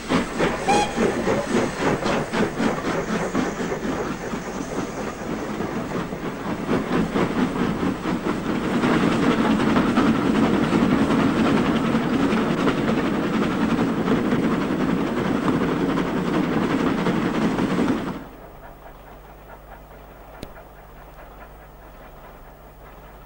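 Steam locomotive working hard: loud, rhythmic exhaust beats with hiss, the beats coming quicker as it goes. The sound cuts off abruptly about eighteen seconds in, leaving only a faint low hum.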